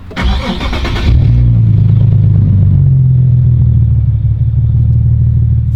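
Nissan 370Z's 3.7-litre V6 being started: about a second of starter cranking, then the engine catches and settles into a loud, steady idle.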